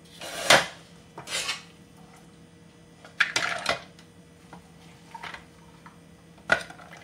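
A plastic spoon scooping cooked mince and dal out of a frying pan and knocking it into a clear plastic chopper bowl: about five separate scrapes and knocks a second or so apart, the loudest about half a second in.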